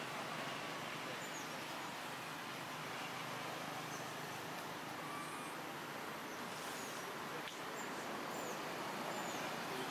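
Steady outdoor background noise with faint, short bird chirps here and there.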